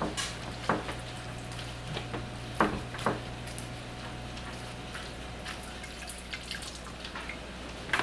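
Water dripping and splashing into a plastic washing drum as wet laundry is wrung out and lifted from it, with a few short splashes about a second in and again around three seconds in.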